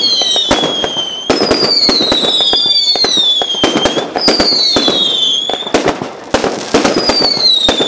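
Fireworks display going off: a dense run of loud bangs and crackles, with a whistle about a second long that falls in pitch, recurring about every three seconds.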